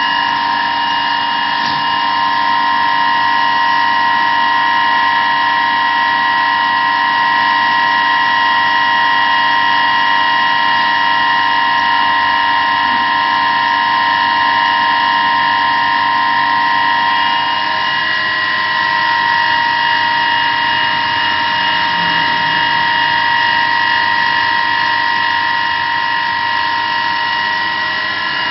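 A machine running steadily, with a constant high whine over a hiss that does not change.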